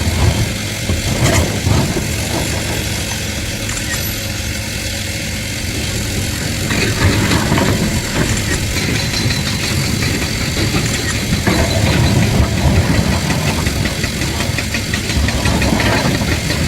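Heavy diesel earthmoving machinery running steadily, with a few short knocks over the engine sound.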